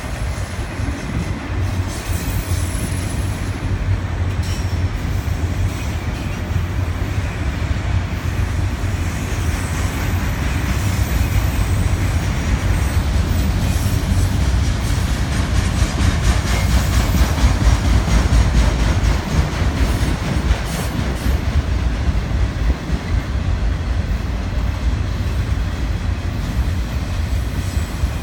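Freight train of autorack cars rolling past at close range: a steady, loud rumble of steel wheels on the rails, with continual rapid clicking from the wheels.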